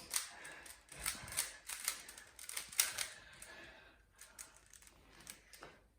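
Rubik's Cube being turned rapidly by hand: a fast, irregular run of plastic clicks and clacks that thins out over the last couple of seconds.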